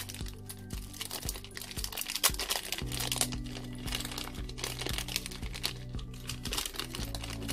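Plastic packaging crinkling and rustling in irregular handling noises as small accessory parts are unwrapped. Background music with sustained chords plays underneath, its chords changing about three seconds in and again near the end.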